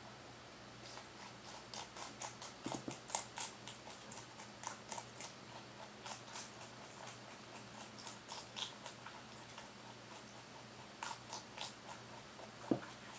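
Rex rabbit chewing crisp leafy greens, a quick crunching in runs with short pauses. One sharper knock near the end.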